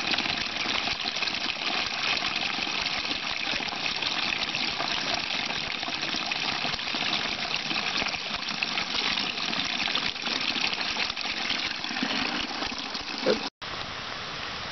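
Spring water running and splashing into a plastic bottle held under a small outflow, a steady rush. About 13 seconds in it cuts off suddenly and a quieter steady hiss follows.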